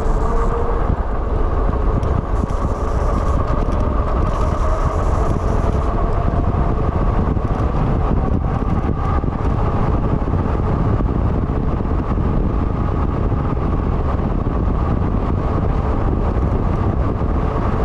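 Steady wind rush on the microphone with tyre and drivetrain noise from an e-bike riding at speed downhill.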